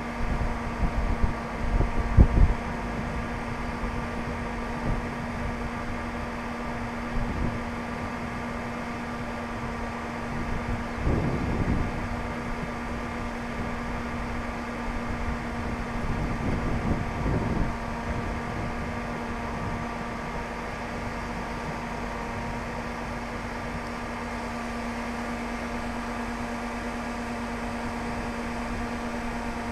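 A steady mechanical hum with a few fixed tones runs throughout. Low wind gusts buffet the microphone near the start, about a third of the way in, and again just past the middle.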